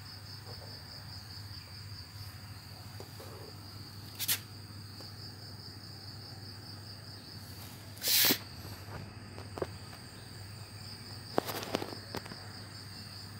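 Steady high-pitched chirping of crickets over a low hum, broken by a few brief knocks, the loudest about eight seconds in.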